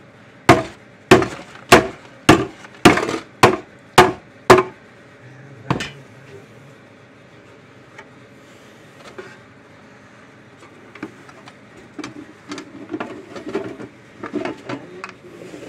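Eight sharp hammer blows, about two a second, on the bent metal housing of a Parmak Solar Pak fence charger, knocking it back into shape so the new solar panel cover will fit. One more blow follows shortly after, and lighter clicks and rattles from handling the panel and case come near the end.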